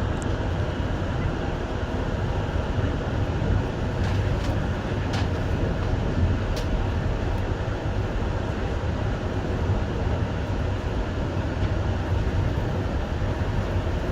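JR Hokkaido Rapid Airport electric train running steadily, heard from inside the car: an even rumble of wheels on rail, with a few faint clicks a few seconds in.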